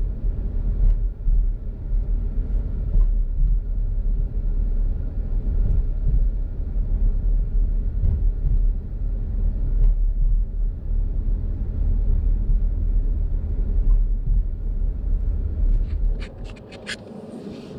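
Car driving on a paved road, heard from inside the cabin: a steady low rumble of engine and tyre noise. About two seconds before the end the rumble drops away to a quieter hiss with a few sharp clicks.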